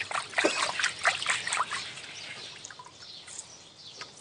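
Hands sloshing and splashing water in a basin of sewer mud, washing out the suspended silt so that only the heavy matter stays behind. The splashing is busiest for the first two seconds, then dies down.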